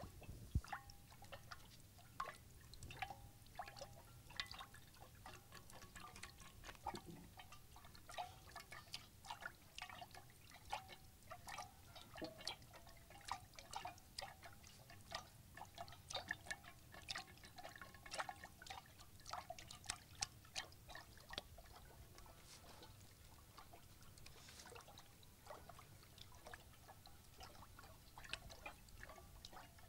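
Grain being rubbed and stirred by hand in several basins at once: a faint, dense patter of small clicks and rustles, thinning out for a few seconds past the middle.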